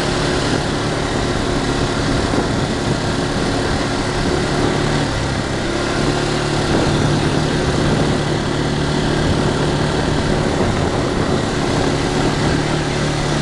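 ATV engine running steadily at low, even speed, with a constant hum and an even noise over it.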